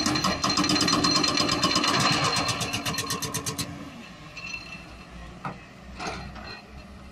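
An engine running close by, with a rapid, even ticking over a steady hum for about three and a half seconds, then dying away to a low background with a couple of faint knocks.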